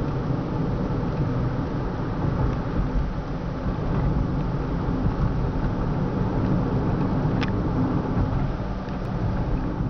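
Steady in-cabin driving noise of a 2003 Toyota Prius cruising at about 50 km/h: a low, even rumble of tyres, road and drivetrain.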